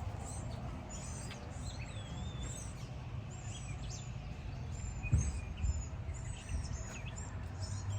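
Songbirds chirping and singing, many short high calls with one warbling phrase about two seconds in, over a steady low rumble. A thump about five seconds in.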